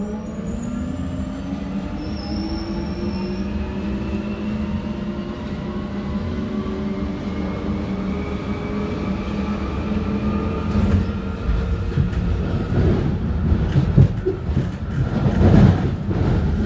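Jubilee line 1996 Tube stock accelerating from a standstill: the GTO-inverter traction motors give a whine of several tones rising steadily in pitch as the train gathers speed. Rumble and knocks from the wheels on the track grow louder over the last several seconds.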